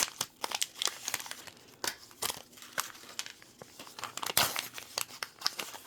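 Small plastic wrappers crinkling and crackling as hands unwrap miniature toy items, with scattered clicks of plastic and one louder crinkle about four and a half seconds in.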